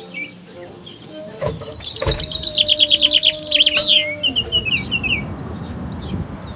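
Birds chirping in quick runs of high, sweeping notes, with a second short burst of chirps near the end.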